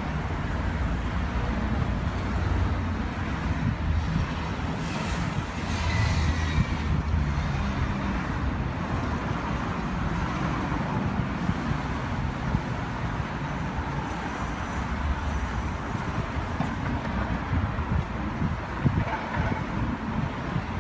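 Steady traffic noise of cars and other vehicles passing on a busy city street.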